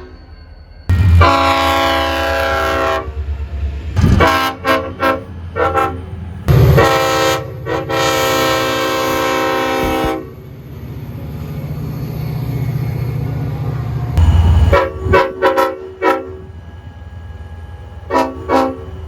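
Multi-tone train horn sounding a series of blasts: a long blast, a quick run of short toots, a longer blast of about three and a half seconds, then two more groups of short toots, over the low rumble of the train.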